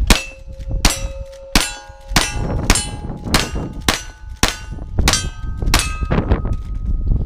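Ten gunshots at a steady pace, about two-thirds of a second apart, at steel targets, each shot followed by the ringing of a struck steel plate; the last ring carries on near the end.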